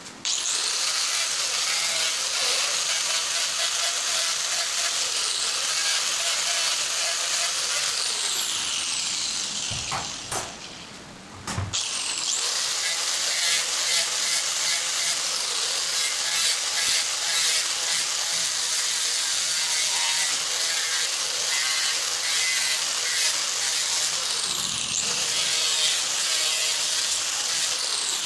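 Handheld angle grinder with a red abrasive wheel working a steel knife blade: a loud, steady, harsh grinding. It dies away about ten seconds in and starts again abruptly a couple of seconds later.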